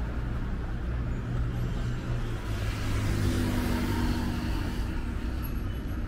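Road traffic at a city junction: a steady low engine rumble, with one vehicle passing close and loudest about three to four seconds in.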